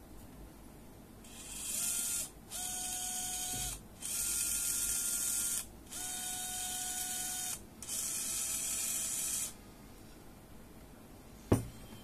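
20 RPM brushed DC gearmotor running in five short bursts of about one and a half to two seconds each, stopping briefly between them as the joystick is pushed and released. Each run is a steady gear whir with a whine over a hiss. A sharp click comes near the end.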